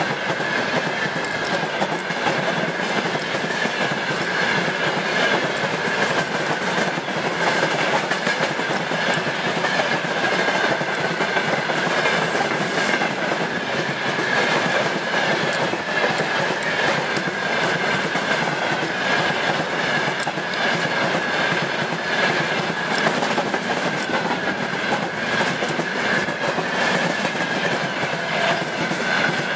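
Loaded and empty open-top gondola wagons of a long freight train rolling past at speed, wheels clattering steadily over the rail joints, with a steady high-pitched ring over the rumble.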